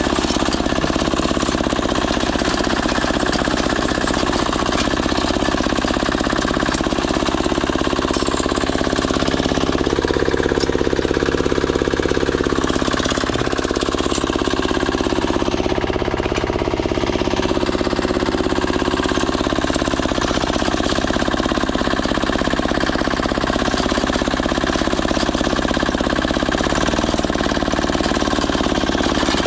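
Diesel walk-behind tractor's single-cylinder engine running with a rapid, even beat. Its tone shifts for a few seconds about ten seconds in, then settles back.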